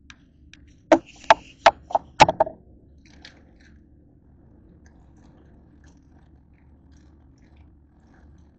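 Countertop handling noise: a quick run of about six sharp knocks and clicks, bunched together between one and two and a half seconds in, then only a faint low hum.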